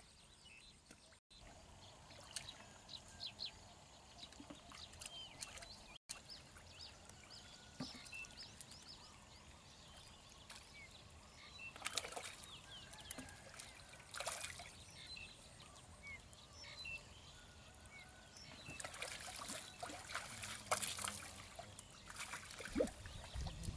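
Muddy shallow water splashing and trickling as hands grope through it for fish, with louder splashes about halfway through and a cluster a few seconds before the end.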